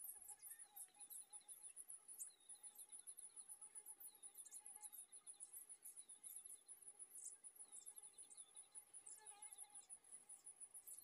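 Faint insect chirping: a fast, steady pulsing trill, with short runs of lower chirps that recur every second or two.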